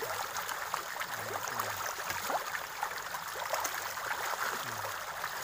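A crowd of pond fish splashing and churning at the surface as they feed, a steady busy spatter of many small splashes.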